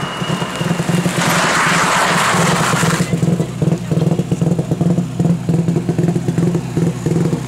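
Subaru Impreza rally car's turbocharged flat-four engine running hard as the car comes in and corners, its note choppy and pulsing. About a second in, a rush of tyre noise lasts for roughly two seconds as the car slides into the corner.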